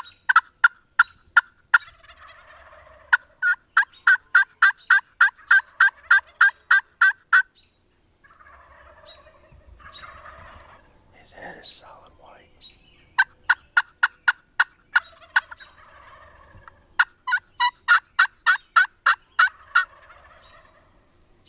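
Wild turkey yelping: four long runs of fast, evenly spaced, sharp yelps, with fainter, rougher turkey sounds in the pause between them.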